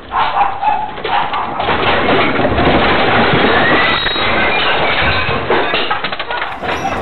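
Objects and furniture rattling, clattering and crashing in a room shaken by a strong earthquake, as picked up by a security camera's microphone: a dense, loud clatter over a low rumble.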